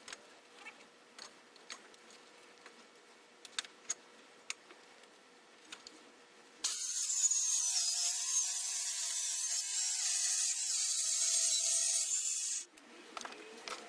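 Light handling clicks, then a drill driving a hole saw into plywood: a steady high whine with cutting noise that starts about six and a half seconds in, runs for about six seconds and stops suddenly, followed by a few more clicks.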